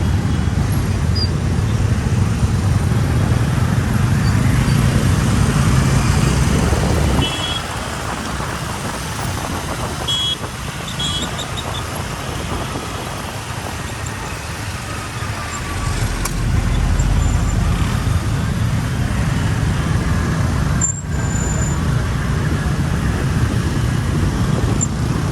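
Car driving, a steady low rumble of engine and road noise that eases off about seven seconds in and builds again after about sixteen seconds.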